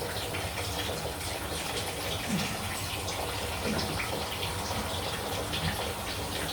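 Water running steadily from the opened supply pipework into a bucket, flowing because the mains stopcock has not fully shut off.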